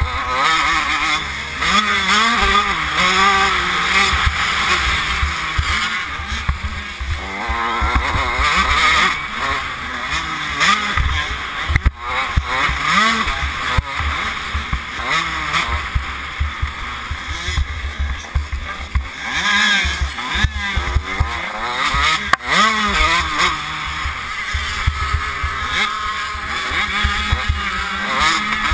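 Motocross bike engine revving hard, its pitch climbing and dropping again and again as the rider accelerates, shifts and brakes, with heavy wind buffeting on the helmet-camera microphone.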